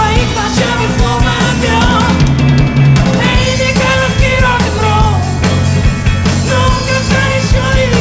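Rock and roll song played by a band, with a drum kit keeping a steady beat under a melody line.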